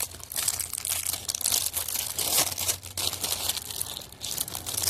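Packaging being crinkled and torn open by hand, a dense run of irregular crackles and rustles.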